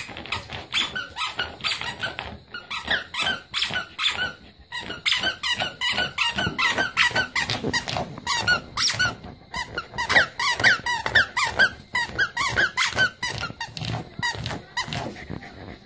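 A rubber squeaky toy squeaked over and over in quick runs of short, pitch-bending squeaks as a dog bites and paws at it, with only brief pauses.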